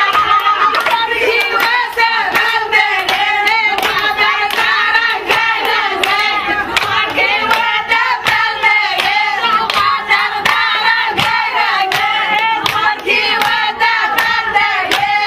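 Women singing together in a Somali buraanbur-style chant, with steady rhythmic hand clapping throughout.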